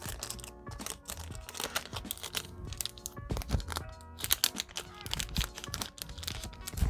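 A Yu-Gi-Oh booster pack's plastic wrapper crinkling and crackling as it is pulled and torn at by hand, over background music.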